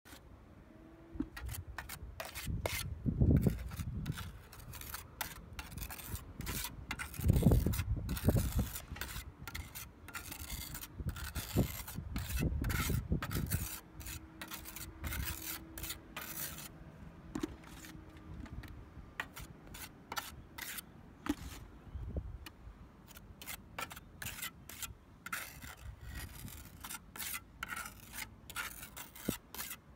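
Small pointing trowel scraping and smoothing pointing compound along roof ridge caps in many short, irregular strokes. A few dull low thumps come through around the early and middle parts.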